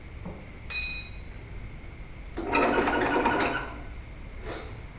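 A steel drill press chuck key clinks once with a short bright ring, then a louder rough clatter of about a second follows midway, as tools and the workpiece are handled.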